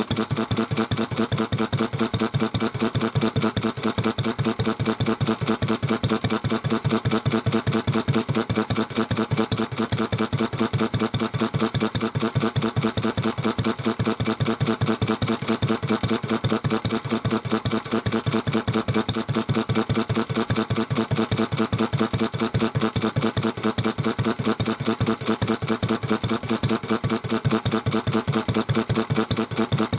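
Early-type Kubota AN single-cylinder kerosene stationary engine running steadily, with an even, rapid exhaust beat.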